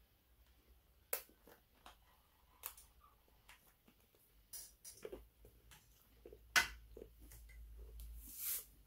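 Faint, scattered crunches and clicks of someone chewing roasted hazelnuts and hard crackers, with a short rustle near the end.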